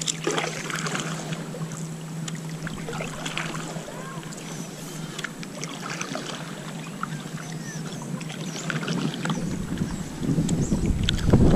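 Paddle strokes in calm water from a stand-up paddleboard: splashes and small dripping plops as the blade enters and lifts out. Wind buffets the microphone, growing louder near the end.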